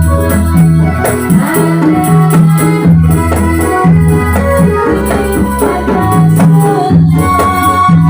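Instrumental ndolalak dance music, with a repeating bass line and a steady percussion beat.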